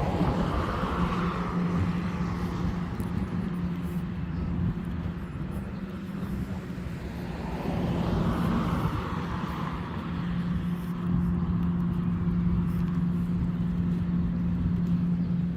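Road traffic: cars pass twice, about a second in and again around eight seconds, over a steady low hum.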